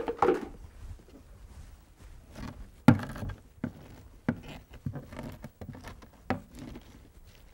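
Nylon potato masher packing wilted, salted shredded cabbage down in a tall plastic container for sauerkraut: a brief rustle at the start, then from about three seconds in a series of irregular dull thumps, one every half second to a second.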